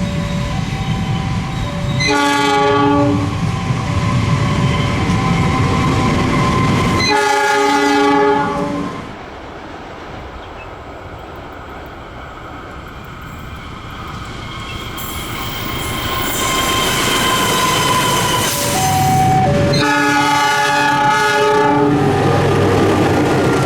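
Diesel-hauled train on Indonesian railways sounding its multi-tone horn in long blasts three times (about 2, 7 and 20 seconds in), over the heavy rumble of the locomotive and the clatter of passing cars. A repeating two-note electronic chime sounds in the first couple of seconds.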